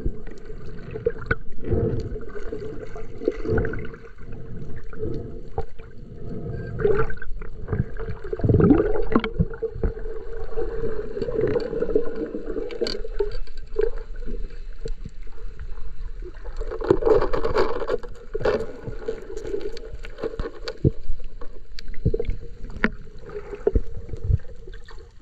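Underwater sound picked up by a submerged action camera: a steady muffled hum with swelling gurgling water movement, broken by scattered sharp clicks and knocks.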